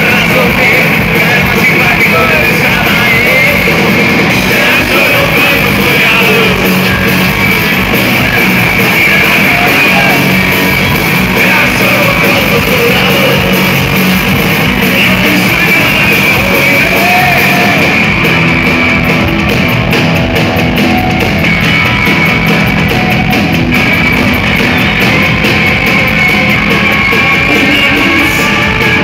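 Live rock power trio playing loud: electric guitar, bass and drum kit, with a man singing. The level stays high throughout.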